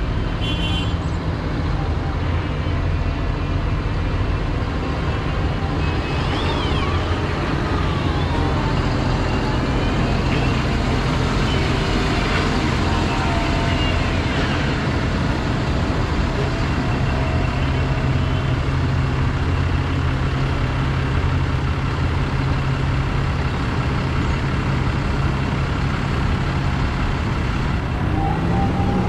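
A convoy of diesel farm tractors, John Deeres among them, driving slowly past one after another, engines running steadily. A whine rises and falls a few times as they go by.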